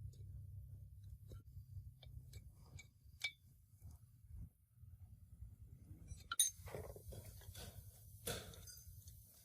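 Scattered light clinks and taps of hard objects being handled, with a louder cluster of clinks and knocks a little over six seconds in, over a steady low hum.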